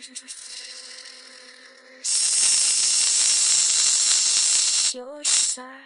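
Replika AI companion's synthesized voice malfunctioning with its audio stuck: a faint held tone, then about two seconds in a loud steady hiss for about three seconds, then short clipped voice fragments repeating near the end.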